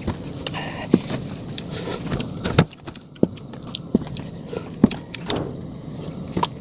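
Eating noises: scattered clicks and light knocks of a spoon or fork against a cup of instant noodles, with wet chewing and mouth sounds in between.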